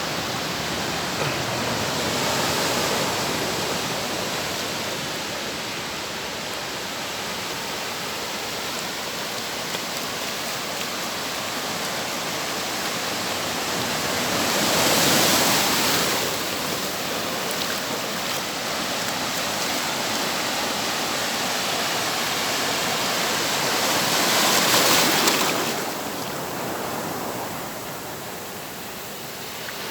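Ocean surf washing onto the shore in a steady rush, with two louder waves breaking about halfway through and again near the end.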